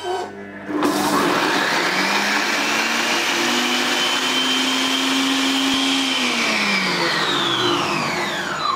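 Cecotec Mambo 10070 kitchen robot's blade motor at speed 10 grinding sugar with orange zest: it spins up with a rising whine about a second in, runs at a steady high speed, then winds down with a falling whine near the end as the timed cycle finishes.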